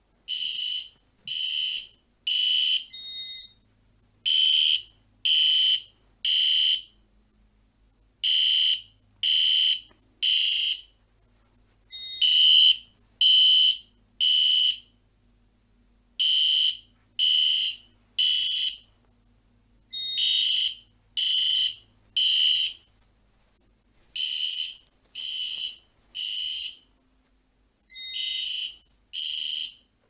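Fire alarm horn of an Edwards (EST) Genesis horn strobe sounding the temporal-3 evacuation pattern: three short, high-pitched blasts, a pause, then three more, repeating about every four seconds.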